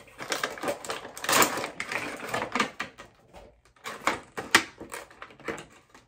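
A cardboard Funko Pop box being opened and its clear plastic insert pulled out: irregular crackling and clicking of plastic and cardboard, busiest in the first three seconds, then a few sharp snaps.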